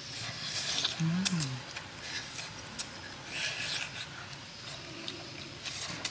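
Mouth sounds of two people eating cooked eel with their fingers: repeated lip-smacking clicks and chewing, with a short hummed voice sound about a second in.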